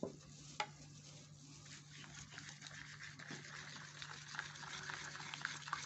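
Faint handling noises from the lotion-making setup: a single sharp click, then a soft hiss with small ticks that grows louder, over a steady low hum.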